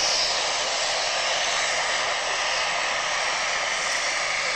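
Fokker 60 twin turboprop's engines and propellers running with a steady roar as the aircraft taxis past along the runway.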